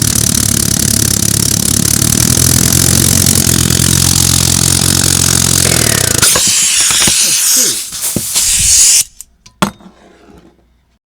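3D-printed compressed-air engine running steadily with a loud hiss of air, then slowing down about six seconds in. The air hiss cuts off near the end, followed by a single sharp click.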